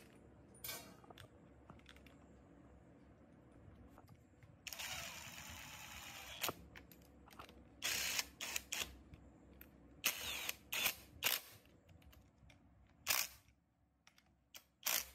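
Hand work on small metal engine parts: a series of sharp clicks and knocks, with a dense noisy stretch of about two seconds about five seconds in.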